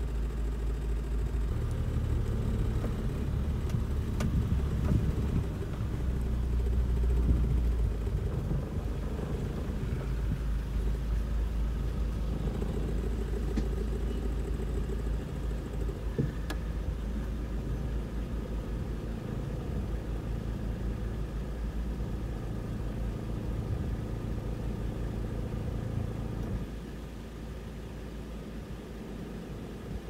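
Vehicle engine idling with a steady low rumble, turning a little quieter near the end.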